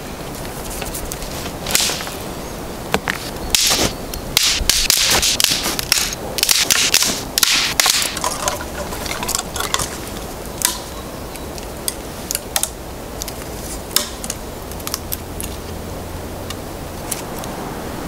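Dry dead twigs and branches being snapped by hand: a dense run of sharp cracks with rustling of the twigs in the first half, then scattered single snaps.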